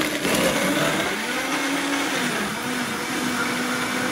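Countertop blender motor running, crushing ice and chunks of fruit into a smoothie. It is steady and loud, its motor pitch sagging and wavering a little in the first couple of seconds before settling.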